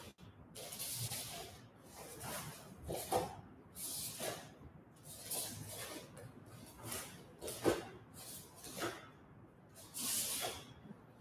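A taekwondo student performing the Taegeuk 7 poomsae solo: short hissing swishes of the moves, about one a second, with a few thuds of bare feet on a wooden floor, the sharpest about three-quarters of the way in.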